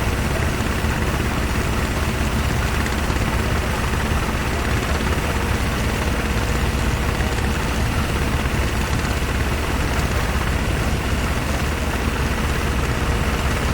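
Boat engine running steadily at an even speed, a constant low drone with a faint steady hum over it.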